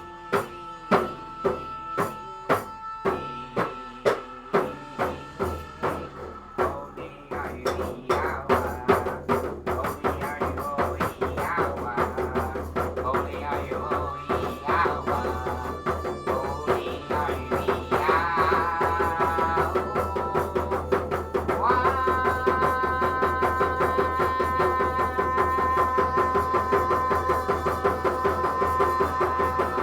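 Instrumental music with a steady percussive beat, about one and a half strikes a second; about seven seconds in it grows fuller, and from about two-thirds of the way through a long note is held over it.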